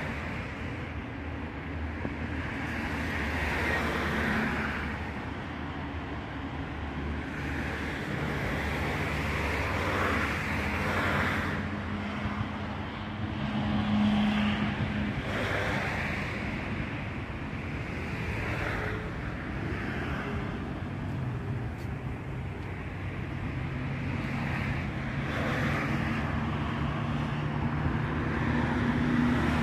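Street traffic: cars passing one after another, each swelling and fading over a few seconds, over a steady low engine hum.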